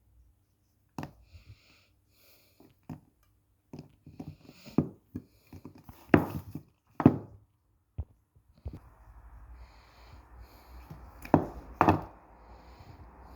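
Kitchen knife chopping through modelling clay onto a hard surface: a run of sharp, irregular knocks, the loudest in the middle and a close pair near the end. From about two-thirds in, a low rushing noise builds underneath.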